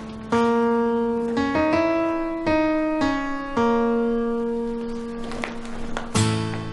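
Background score: a slow piano melody of single notes struck and left to ring, with a fuller chord struck near the end.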